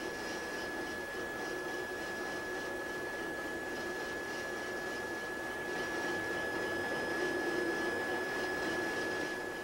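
Steady machinery noise aboard a ship, a hum with a constant high-pitched whine over it, growing slightly louder about six seconds in.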